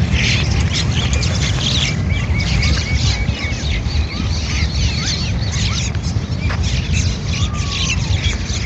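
A flock of small birds chirping and twittering continuously, many short overlapping calls, over a steady low rumble.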